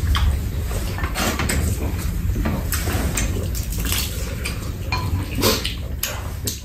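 Spoons clinking and scraping against soup bowls, with slurping and eating noises at a table, over a steady low rumble.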